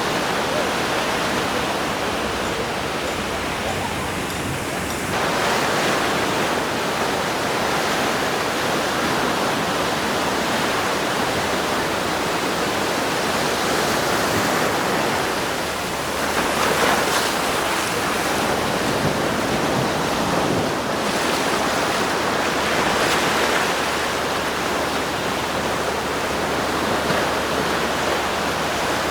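Sea surf washing onto a sandy beach, a steady rushing that swells as waves break every several seconds.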